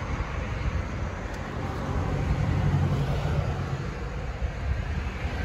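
Steady road traffic noise, swelling briefly about halfway through as a vehicle goes by.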